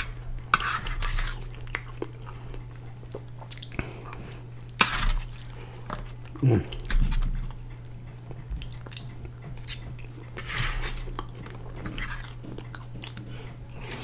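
Close-up, wet chewing of a mouthful of sauced, cheese-topped fries, with occasional clicks and scrapes of a metal fork on a foil-lined tray. A steady low hum runs underneath.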